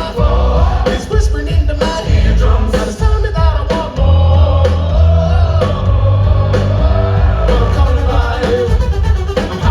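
Live indie rock band playing loudly, with a lead vocal singing over heavy bass and a driving drum beat.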